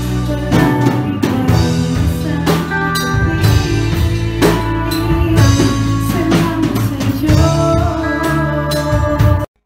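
A live band playing a worship song, with drum kit, electric guitar and bass and voices singing. It cuts off abruptly at the very end.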